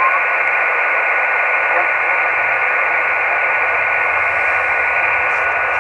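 Yaesu FT-817 receiver audio on the VO-52 amateur satellite downlink between transmissions. A steady rush of static is heard, with a steady high whistle of a carrier in the passband.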